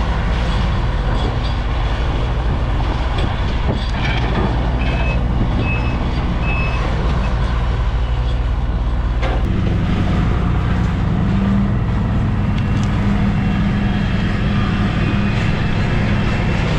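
Takeuchi TL12V2 skid steer's diesel engine running steadily, then picking up in pitch and load about nine and a half seconds in. Three short high beeps sound about five to seven seconds in.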